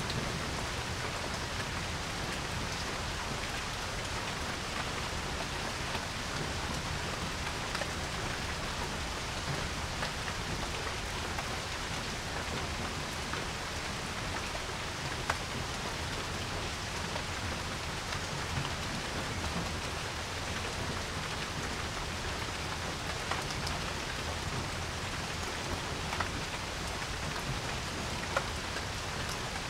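Steady rain falling on a porch, an even hiss with a few louder single drips ticking here and there.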